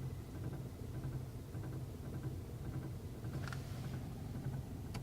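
Toyota Camry (XV30, 2.4-litre automatic) heard from inside the cabin: a steady low drone with a faint, light knock repeating a couple of times a second. This is the unexplained knock in the cabin that the owner is asking about.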